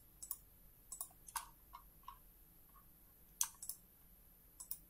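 Computer mouse clicking faintly: scattered single clicks and quick pairs while sketch profiles are selected in CAD software.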